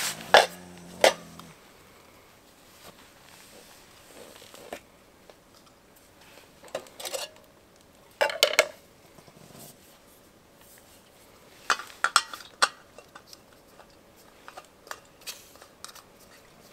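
Scattered knocks and clinks of hard objects being handled, in a few short clusters with quiet gaps between, some hits leaving a brief ring.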